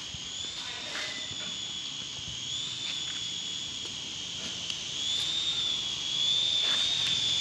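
Small electric motors of a remote-control toy helicopter whining steadily in flight, the pitch wavering slightly with throttle and the whine growing louder about five seconds in and again near the end.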